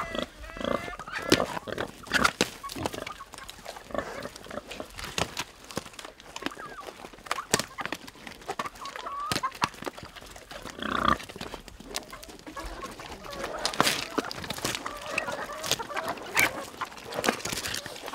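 Pigs grunting and crunching on split coconuts, with many sharp cracking clicks as they chew, and chickens clucking around them.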